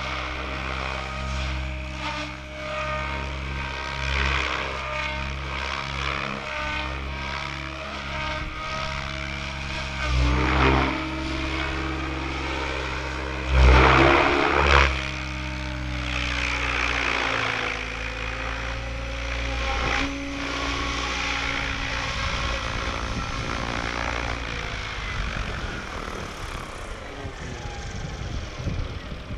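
Goblin 700 radio-controlled helicopter flying, its rotor and drive giving a steady pitched drone, with loud swooshing surges during manoeuvres about ten and fourteen seconds in. Near the end it sets down and the rotor sound drops away.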